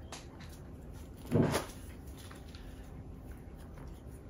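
A single short thump about a second and a half in, over quiet room tone.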